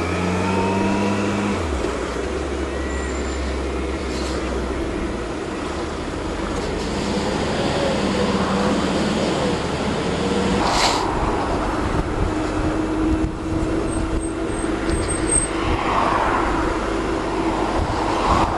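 Kawasaki GTR 1400 motorcycle being ridden in traffic: steady wind and road noise over its inline-four engine, with the engine note dropping about two seconds in.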